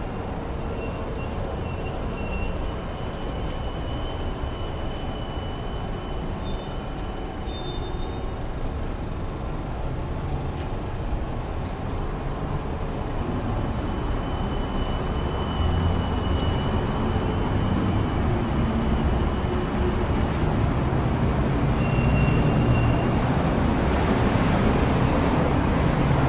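Street traffic on a busy avenue: cars and trolleybuses passing, a steady low rumble that grows louder in the second half, with a thin high whine coming and going.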